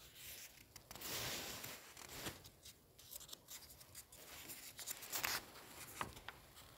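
Paper pages of a printed catalogue being handled and turned: a soft rustle about a second in, then fingers rubbing, brushing and flicking the paper in short scrapes and clicks.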